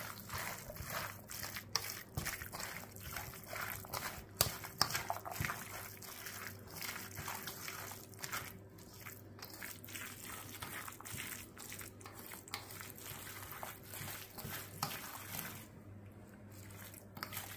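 Fork stirring and mashing chunky guacamole in a stainless steel mixing bowl: wet squelching and sloshing, with frequent irregular clicks and scrapes of the fork against the metal bowl.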